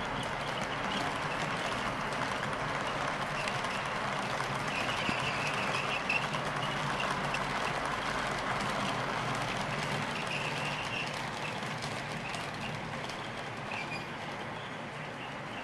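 HO-scale model freight train, a TOMIX EF510 electric locomotive hauling nine Katsumi Hoki 2500 hopper wagons, rolling past on the layout track: a steady rumble of wheels on rails with brief high squeaks now and then. It fades as the train moves off in the last few seconds.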